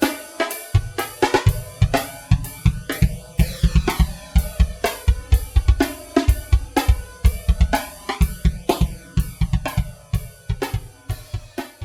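Drum kit playing a 1970s psychedelic-rock-style drumroll: rapid snare and bass drum hits with cymbals and hi-hat, the tone of the kit sweeping up and down as it goes.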